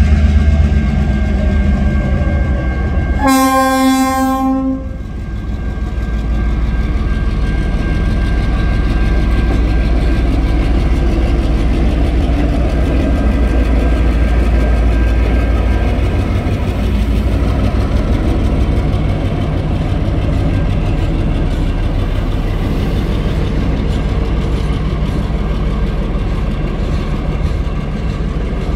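TasRail DQ-class diesel locomotive 2009 sounds one horn blast of under two seconds, several tones at once, about three seconds in. Then its diesel engine rumbles steadily past, followed by empty cement hopper wagons rolling over the level crossing.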